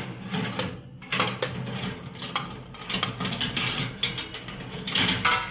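Metal oven accessories, kebab skewers among them, clinking and rattling as they are handled and unpacked: a continuous run of quick small clicks and clatters.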